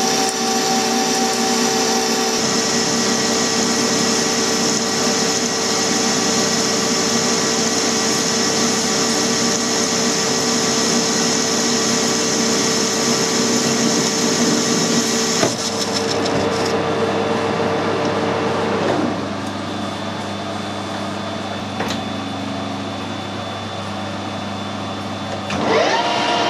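Metal lathe taking a turning cut on the outside of a bearing housing with a carbide insert tool: the motor and gear whine runs steadily under the hiss of the cut. The sound changes about 15 seconds in, and about 19 seconds in it drops to the lathe running on more quietly without cutting.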